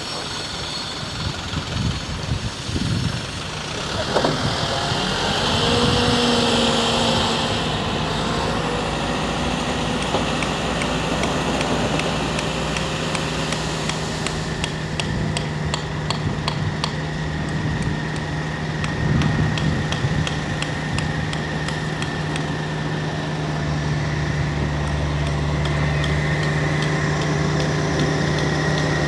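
Diesel engines of a hydraulic excavator and dump truck running. The pitch rises briefly about four seconds in, then the engine settles into a steady drone.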